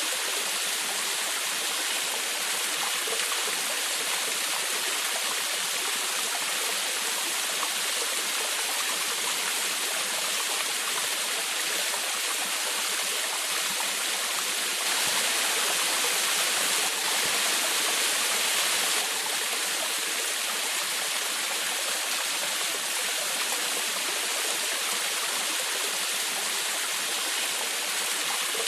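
Small forest waterfall splashing and babbling steadily: an even rushing hiss of falling water, a little louder for a few seconds around the middle.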